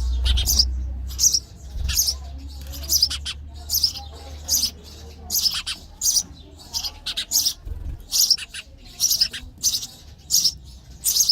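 Sparrows chirping: many short, high chirps, often in quick runs of two or three. A low rumble sits under the first couple of seconds and comes back briefly near eight seconds.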